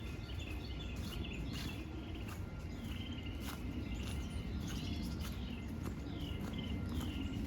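Songbirds chirping over and over in short, curved notes, over a steady low outdoor rumble, with a few light clicks.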